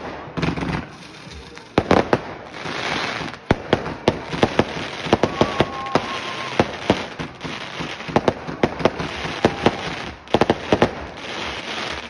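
Fireworks going off overhead: many sharp bangs and crackles in quick succession, between stretches of hissing.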